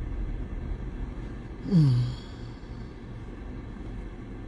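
A woman's short sigh, falling steeply in pitch, about two seconds in, over a steady low hum inside a car.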